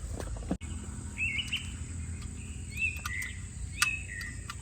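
A bird calling in a few short, bending chirps, over a steady low outdoor rumble, with a few sharp clicks, the loudest a little before the end.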